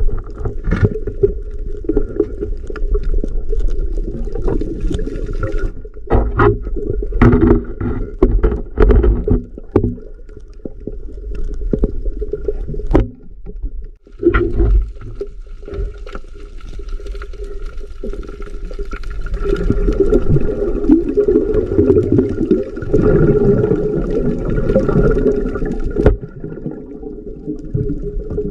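Underwater sound picked up through an action camera's waterproof housing: a dense, muffled low rumble of moving water, with scattered sharp clicks and knocks and a faint steady hum in the background.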